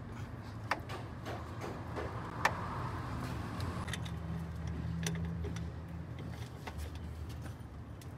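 Camshaft and camshaft adjuster of a Mercedes M276 engine being turned over: a steady low hum with a few sharp metallic ticks, the loudest about two and a half seconds in. The intake camshaft adjuster is faulty and slips, jumping its teeth.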